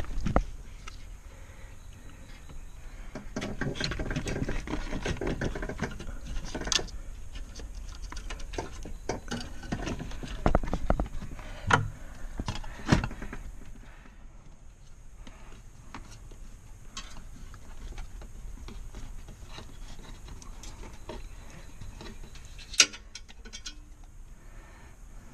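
Scattered knocks, clicks and rattles of hands-on work inside a car's interior as the metal dashboard support structure is fitted back in, busiest in the first half, with one sharp click near the end.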